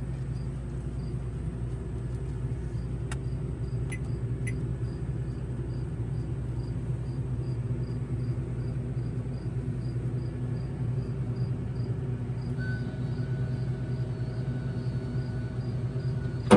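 Steady low mechanical hum, with faint high chirps repeating about twice a second and a few faint clicks.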